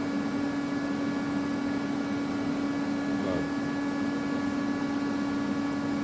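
CNC lathe standing switched on with its spindle stopped: a steady machine hum with one constant low tone and fainter high tones over a light hiss.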